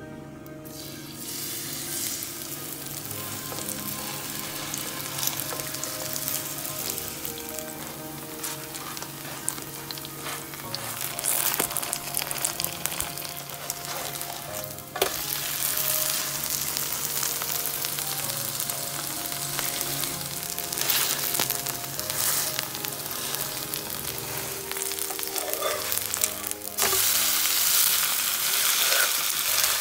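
Korean chive pancake batter sizzling as it fries in hot oil in a pan. The sizzle starts about a second in and gets louder about halfway through, then again near the end.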